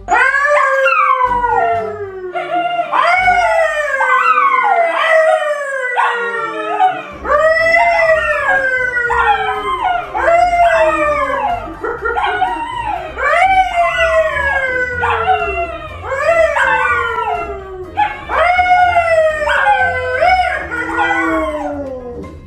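A yellow Labrador retriever and a brown poodle howling along with a man who howls at them: a run of long overlapping howls, each rising briefly and then sliding down in pitch.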